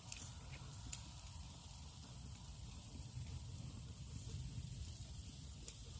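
Crickets chirring in one steady high-pitched band over a low background rumble, with a few faint clicks.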